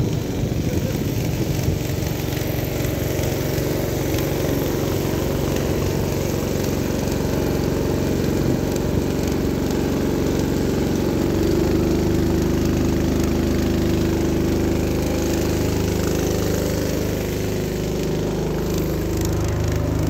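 Small motorboat engine running steadily under way, a little louder about halfway through, over a hiss of wind and water.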